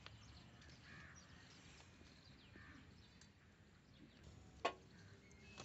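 Near silence, with one sharp click about three-quarters of the way through.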